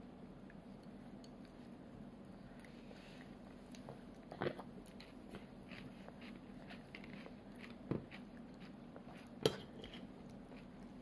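A toddler eating a fried shrimp: faint chewing and biting on the crisp breading, with a fork and spoon clicking against the plate three times, the last, near the end, the loudest. A low steady hum runs underneath.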